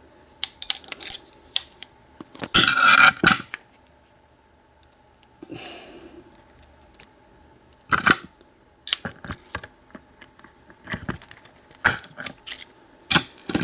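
Metal clicks, clinks and scrapes from a large American 748 padlock being handled and worked apart with a hex key, loudest in a clattering cluster about three seconds in and a sharp knock about eight seconds in.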